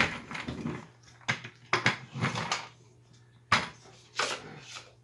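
A string of irregular knocks and clatters as a gaming chair's plastic five-star base, casters and gas-lift cylinder are handled and bumped against the seat and floor during assembly.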